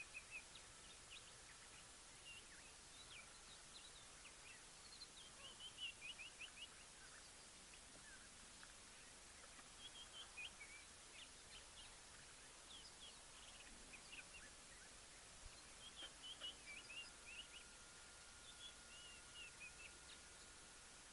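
Faint birdsong: scattered clusters of short, high chirps over a steady background hiss. A faint steady high tone joins about two-thirds of the way through.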